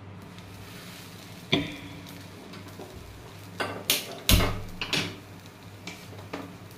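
A few sharp knocks and clanks of a metal utensil against an iron tawa as a bread sandwich is set down and shifted on it, the loudest about four seconds in, over a low steady hum.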